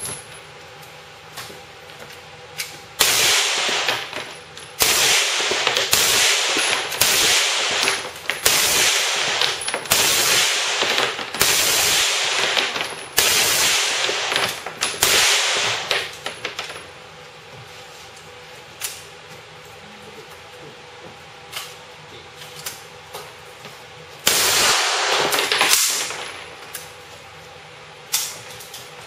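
Automatic gunfire at a shooting range: a run of short bursts, one after another for about thirteen seconds, then a single further burst near the end.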